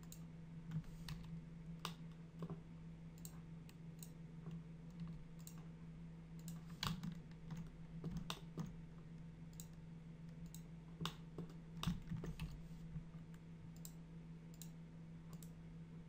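Irregular computer mouse clicks and keyboard keystrokes while working in modelling software, a few coming closer together about seven and eleven seconds in, over a steady low hum.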